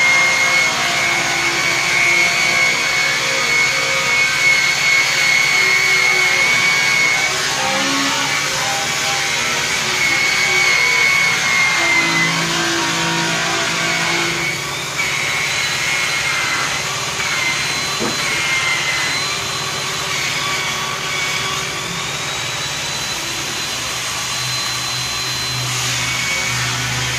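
Handheld electric rotary buffer running with a steady high whine as its cloth buffing wheel polishes an aluminum truck grill; the whine shifts to a higher pitch about halfway through.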